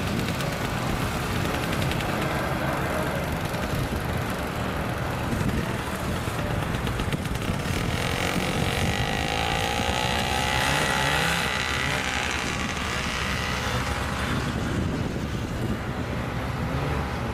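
A procession of snowmobiles passing close by at parade speed, their engines running in a steady mixed drone. About halfway through, one sled's engine note rises and then falls as it goes past.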